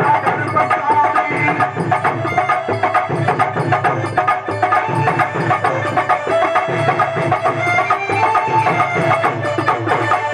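Live folk music: fast, dense drumming under a wavering melody of long held notes from a wind instrument, playing without a break.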